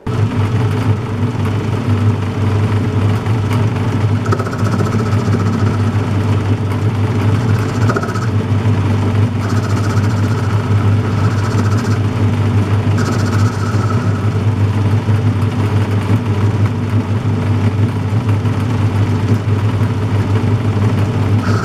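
Metal lathe running: a steady motor and gear-train hum with a higher whine and hiss that come and go every few seconds.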